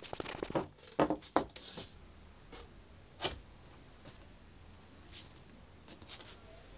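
Handling of a glue-up: several sharp knocks in the first second and a half as a sheet of red Valchromat is laid onto glued plywood, then a few faint taps and rubs as it is pressed down by hand.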